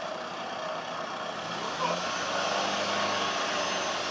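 A motor vehicle engine running over steady street noise, its low hum coming in about one and a half seconds in and holding steady.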